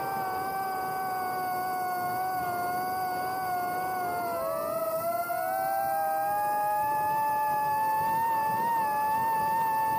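Twin electric propeller motors of a foam model glider whining steadily at speed, with wind rush underneath. About four to five seconds in, one motor's pitch glides up to meet the other's, and both then hold slightly higher.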